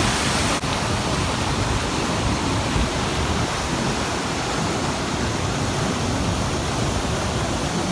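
Waterfall, a steady, dense rush of falling water close by, with a brief break about half a second in.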